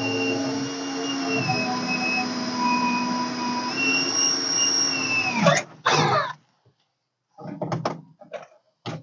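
Cordless drill/driver running steadily to back out a screw from the cab's rear interior panel, its motor whine shifting pitch slightly under load, then winding down and stopping about five and a half seconds in. Short clicks and rattles of the drill and loosened parts being handled follow.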